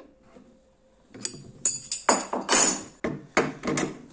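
Metal clicking and rattling of a trim router's parts being handled and fitted. It comes in several irregular short bursts after a quiet first second, the longest about two seconds in.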